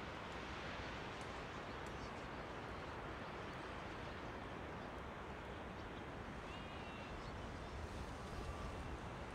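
Faint calls of a Brambling flock over a steady rushing background, with a few short chirps standing out about seven seconds in.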